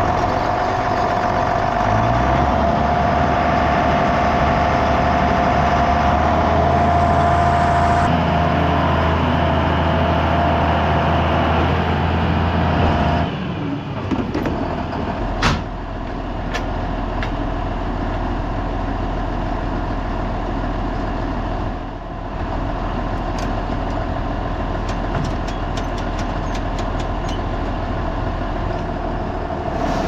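A John Deere tractor engine running steadily while it drives. About 13 seconds in the sound changes abruptly to a lower, steadier engine drone, with one sharp knock a couple of seconds later and scattered light clicks after it.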